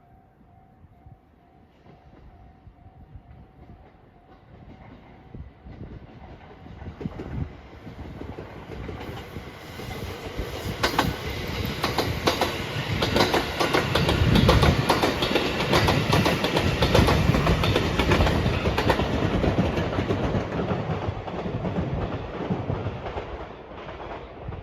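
A train approaches and passes close by over a level crossing, its wheels clattering over the rail joints; it is loudest about midway through and fades near the end. A level-crossing warning bell rings at first.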